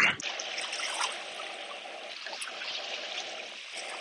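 Small sea waves washing in over a sandy shoreline, a steady wash of water.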